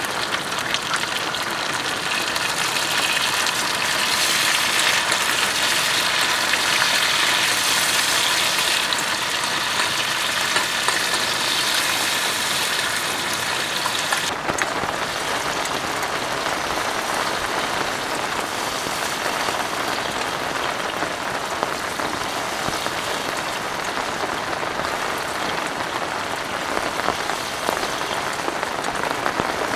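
Heavy rain falling steadily. About halfway through, the sound changes suddenly and becomes a little duller.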